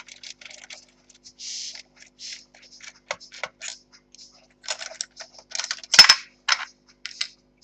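Small clicks, taps and brief scrapes of plastic and metal laptop parts being handled as the laptop is taken apart, with one sharp knock about six seconds in.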